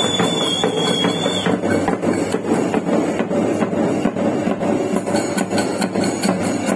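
Dollu kunitha drumming: large dollu barrel drums beaten together in a dense, driving rhythm of strokes. A high held whistle tone stops about a second and a half in.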